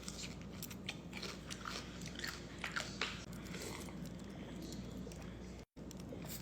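Someone biting into and chewing a pickle: a run of short crunches and chews.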